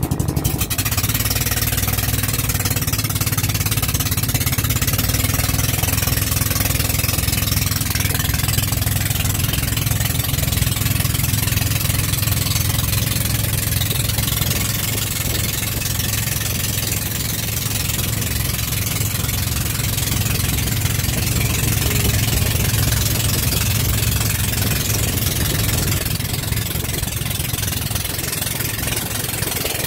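Outrigger pumpboat's inboard engine running steadily while the boat is under way, a constant low hum with an even hiss over it.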